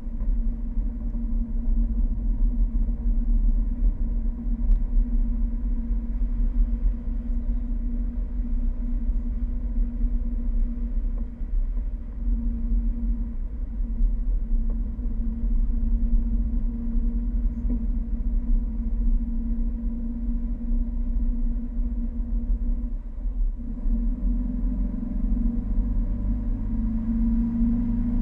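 A Fiat 1200 Spyder's four-cylinder engine running steadily while the car drives, heard from a camera on the bonnet over a strong low rumble. Near the end the engine note changes, with new lower tones coming in.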